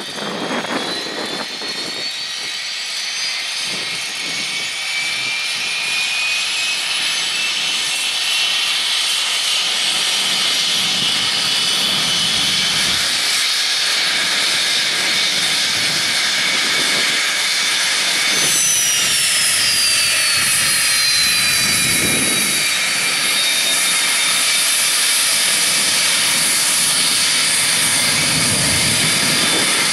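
Cessna Citation business jet's twin turbofan engines whining as it taxis past: a high whine that slowly climbs in pitch and grows louder, then from about eighteen seconds in a second whine sweeps down in pitch as the engines swing by and face away.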